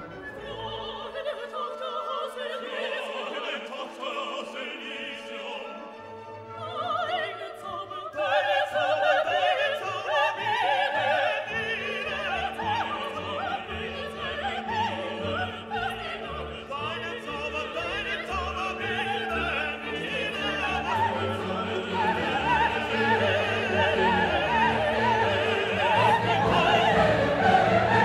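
Orchestral classical music with an operatic singing voice, growing fuller and louder about eight seconds in and again near the end.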